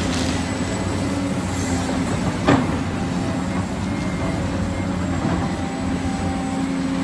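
Large Caterpillar 365C L hydraulic excavator's diesel engine running steadily while it digs, a low continuous drone, with a single sharp knock about two and a half seconds in.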